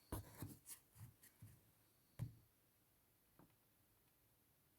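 Near silence: room tone with a few faint, short clicks in the first couple of seconds.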